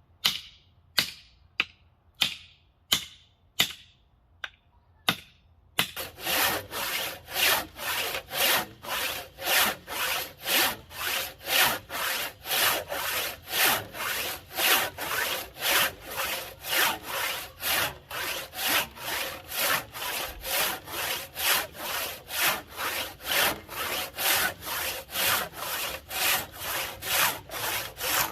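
A few sharp wooden knocks, then from about six seconds in a rasp scraping a hickory axe handle in steady back-and-forth strokes, about two a second, shaping the wood.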